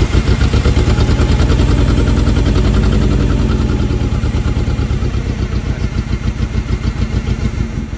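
Forklift's LPG engine running rough just after starting, with an uneven, lumpy beat. The misfire persists despite new spark plugs and leads, and the owner suspects a spark plug lead fitted the wrong way. It grows gradually quieter after the first few seconds.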